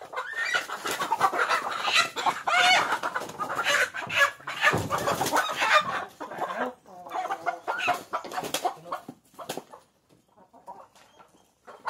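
Hybrid chickens squawking and clucking loudly while being caught by hand: alarm calls from handled birds, dying down to a few quieter clucks for the last couple of seconds.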